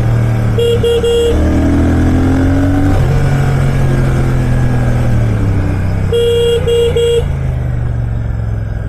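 A vehicle horn gives three quick beeps near the start and three more about six seconds in, over the steady running of the Royal Enfield Shotgun 650's parallel-twin engine in city traffic.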